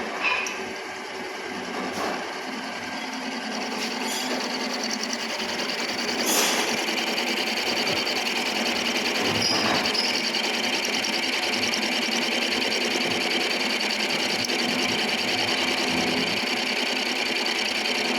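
Milling machine running with a fast, even mechanical rattle that builds up over the first few seconds and then holds steady, with a few short knocks early on.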